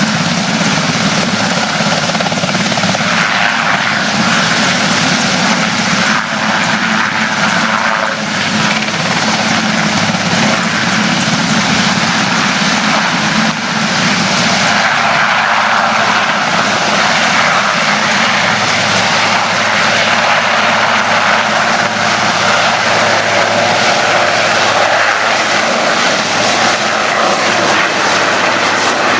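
Firefighting water helicopter's rotors and engine, a loud steady whirring wash with no break, its tone shifting slightly about halfway through.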